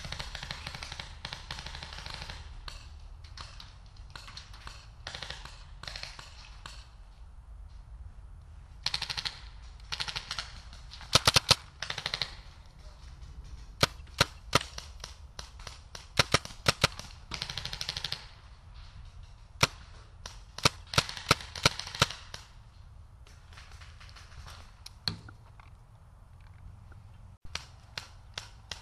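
Paintball markers firing: sharp pops in scattered single shots and fast strings. The loudest strings come about eleven seconds in and again around twenty-one seconds.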